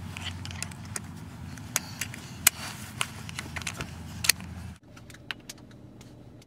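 Low steady rumble of a car interior with scattered sharp clicks and rattles; the rumble cuts off suddenly about five seconds in, leaving only a few faint clicks.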